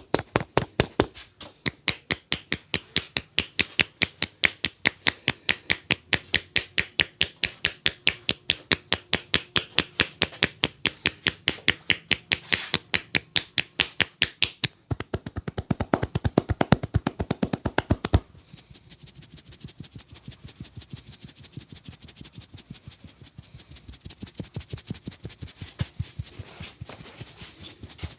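A barber's hands drumming a rapid percussive massage on a client, chopping and tapping at about four to five strokes a second. The strokes are loud and even at first, turn deeper-sounding for a few seconds past the middle, then drop to softer, quicker taps for the last third.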